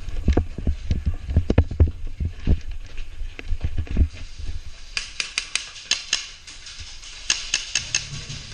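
Irregular low thuds for about four seconds, then from about five seconds in a string of sharp, irregular snaps of airsoft gunfire.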